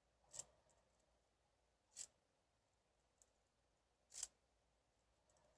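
Lock pick working the pins inside a Medeco biaxial 6-pin lock: three faint clicks about two seconds apart, with a fainter tick between the second and third.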